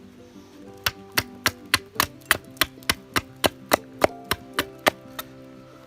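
Quick, evenly spaced axe strikes chopping into a wooden branch, about three blows a second, starting about a second in and stopping near the end, over background guitar music.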